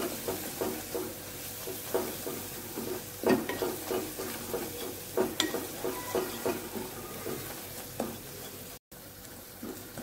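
Spatula stirring and scraping a thick onion-tomato masala around a nonstick kadai, in short irregular strokes, over a low sizzle as the spice powders fry on a low flame. A split-second gap breaks it near the end.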